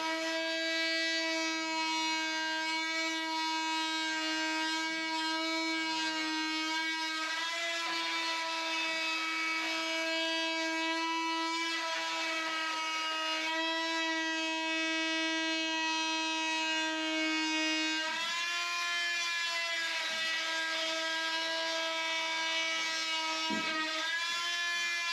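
An electric power tool's motor running with a steady high whine. Its pitch sags and recovers twice near the end, as if briefly loaded.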